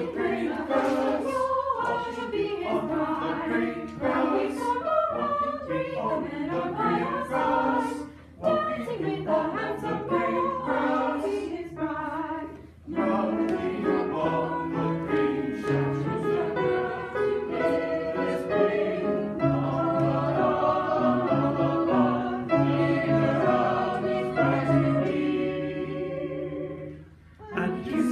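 A choir singing together, with short breaks about 8 and 13 seconds in, and the singing stopping near the end.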